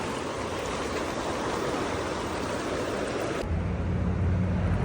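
Stream water rushing steadily. About three and a half seconds in, the hiss of the water suddenly gives way to a louder low rumble.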